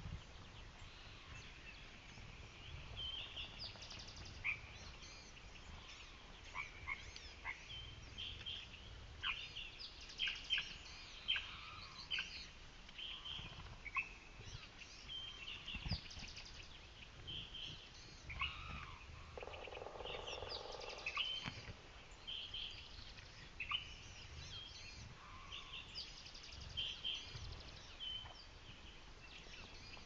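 Several wild songbirds chirping, calling and trilling, their short phrases overlapping throughout, over a faint low rumble.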